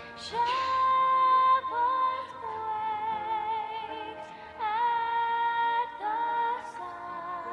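A slow Christmas carol sung by voices, long held notes with a gentle vibrato moving from note to note.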